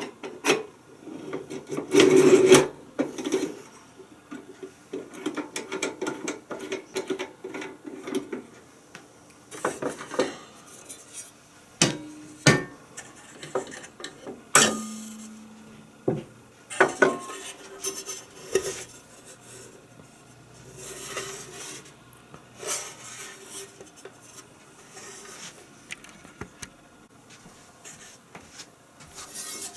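Metal and plastic pans, lid and wire rack of a Reese Universal tabletop grill being lifted off, pulled out and set down: a series of knocks and clatters with scraping and rubbing between them, the loudest clatter about two seconds in and one knock, about halfway through, leaving a short ring.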